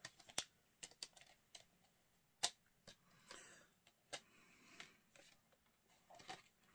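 Faint scattered clicks and soft rustles of a Blu-ray digipack being handled, with one sharper click about two and a half seconds in.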